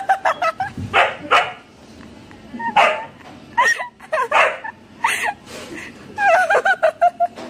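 Husky puppy yipping and barking in a string of short, high calls, with a longer wavering call near the end.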